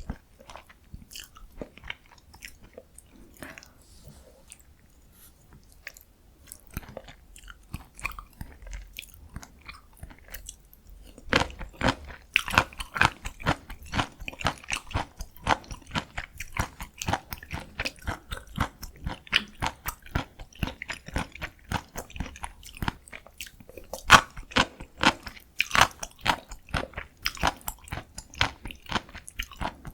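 Close-miked chewing of bibim noodles, a rapid run of wet mouth clicks and smacks. It is soft and sparse for the first third, then louder and denser chewing from about a third of the way in.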